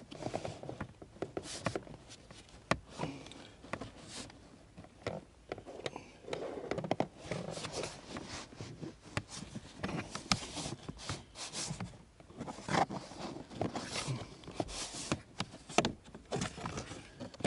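Hard plastic kick panel being worked into place under a car dashboard: irregular clicks, knocks and scraping of plastic against plastic as its tabs are pushed into their slots.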